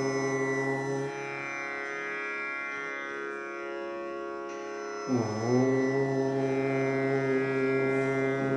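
A long, low chanted "Om" over a steady droning music bed. One held Om fades out about a second in, leaving only the drone, and a new Om begins about five seconds in, the voice sliding up and then holding one long tone.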